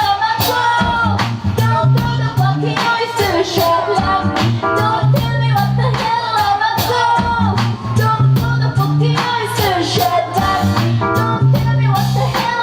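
Live band music with a woman singing over a stepping bass line and steady drum beats.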